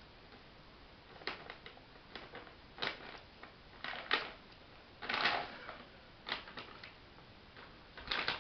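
Hedgehog rummaging in a bag of dry cat food: irregular crinkling and clicking of the bag and kibble, with a longer rustle about five seconds in.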